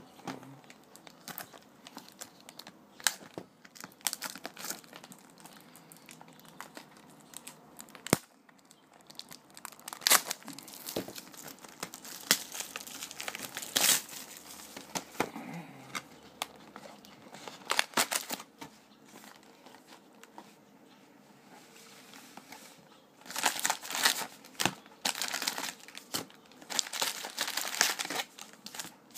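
Plastic wrapping crinkling and tearing as a trading-card hobby box is unwrapped and opened, with scattered crackles and taps of handling. Near the end comes a denser run of crinkling as the foil-wrapped card packs are taken out and stacked.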